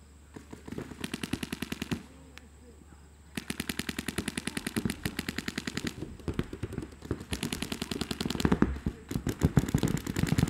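Paintball markers firing in rapid strings of shots: a short burst in the first two seconds, a pause of about a second and a half, then near-continuous rapid fire that grows louder toward the end.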